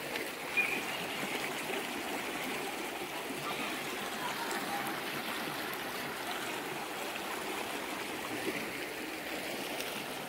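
Swollen, muddy river rushing steadily over rocks, running high and deep.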